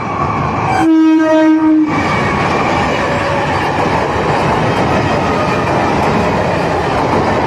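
Electric multiple unit (EMU) local train sounding one horn blast of about a second, a little under a second in, then the steady running noise of its coaches passing close by.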